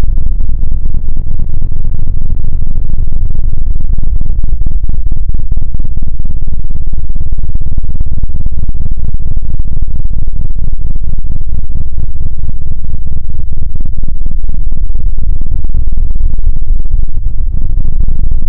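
A very loud sound effect slowed down heavily, heard as a steady deep rumble.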